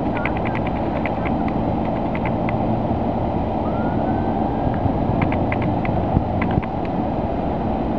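Birds chirping in quick runs of short, high notes, twice, with one faint rising whistle between, over a steady low rumble.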